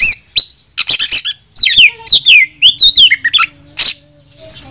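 Oriental magpie-robin singing a fast, varied song of clear whistles that slide down in pitch, mixed with harsh rasping notes, thinning out near the end. This is the excited full song of a male calling out a rival to fight.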